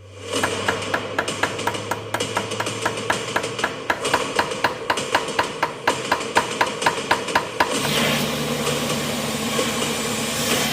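Hammer tapping on metal in quick, light, evenly spaced strikes, about four or five a second, each with a short ring. Near the end the tapping stops and a machine starts running steadily.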